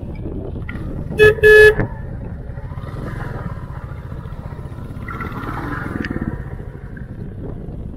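Motorcycle horn honked twice about a second in, a short beep then a longer one, over the steady low running of a Royal Enfield Classic 350's single-cylinder engine at low speed on rough ground.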